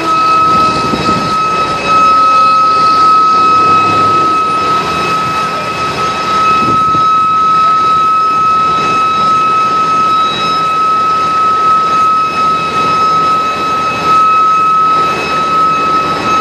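Heavy truck engine running steadily, with a constant high whine over a rushing roar.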